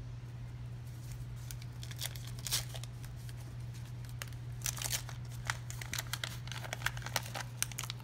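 Wax paper wrapper of a 1986 Topps baseball card pack crinkling and tearing as the pack is opened: a quick, irregular run of sharp crackles starting about a second and a half in, over a steady low hum.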